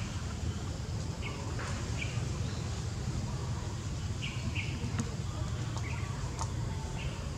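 Short, high bird chirps every second or so over a steady low rumble, with a few faint clicks.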